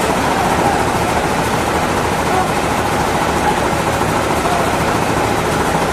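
An engine running steadily, with no change in speed or load.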